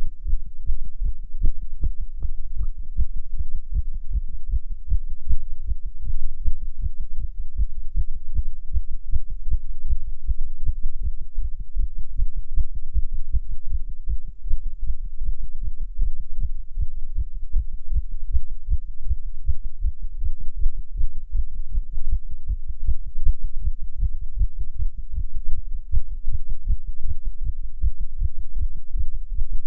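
Human heartbeat beating fast in a steady run of low beats, the heart rate raised by nicotine while the person smokes a cigarette.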